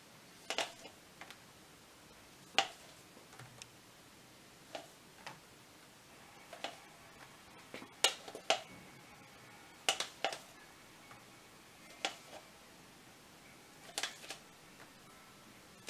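Sharp clicks and taps from a plastic paint bottle being squeezed and shaken to drip paint, one every second or two, some in quick pairs.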